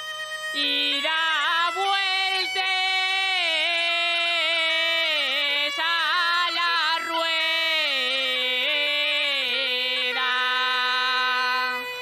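A young woman singing the long closing phrase of an Asturian tonada solo, the voice held and heavily ornamented with quick turns in pitch. It comes in about half a second in, steps down through the phrase and stops just before the end.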